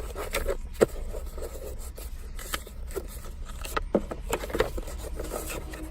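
Hands handling the pieces of a dental impression kit: light scrapes, rubs and scattered clicks over a steady low hum.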